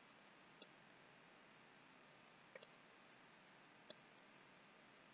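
Near silence broken by a few faint computer mouse clicks: one about half a second in, a quick double click around two and a half seconds, and one near four seconds.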